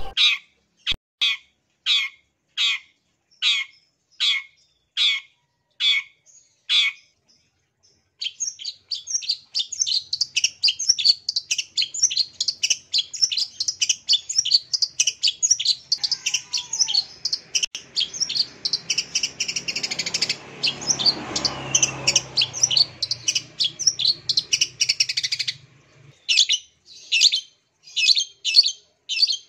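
Long-tailed shrike (cendet) calling. It starts with a string of single high notes, about one every two-thirds of a second. After a short pause it breaks into a long, fast chattering song of mixed notes, then goes back to spaced single notes near the end.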